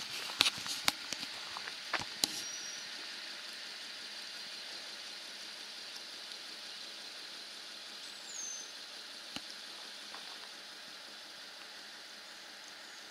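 Steady, fairly faint high hiss of outdoor ambience. A few sharp clicks of camera handling come in the first two seconds or so. Two short bird notes are heard, one a high falling whistle about eight seconds in.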